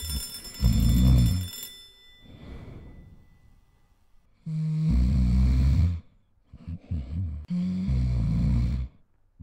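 Exaggerated cartoon snoring from a sleeping character: three long, loud snores a few seconds apart.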